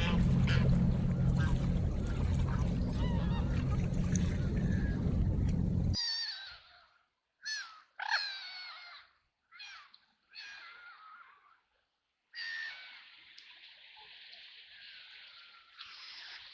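A loud steady rush of water with a low rumble cuts off suddenly about six seconds in. Then ducks call in short honking bursts, and from about twelve seconds a softer steady hiss of water carries more calls.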